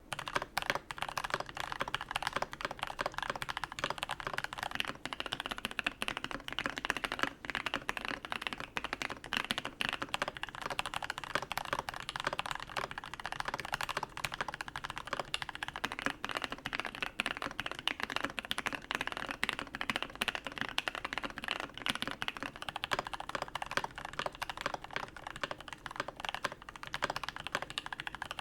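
Continuous fast typing on a custom U80-A SEQ2 mechanical keyboard with a brass plate and lubed, filmed switches: a rapid, steady stream of key presses and keycap clacks.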